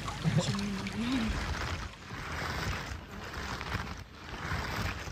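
Water running and splashing in a brook, swelling and easing roughly once a second, with a low voice murmuring briefly at the start.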